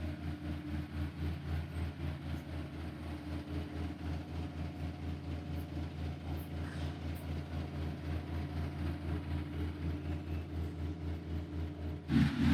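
A large engine idling steadily, a low hum with an even pulse of about four beats a second. The sound changes abruptly near the end.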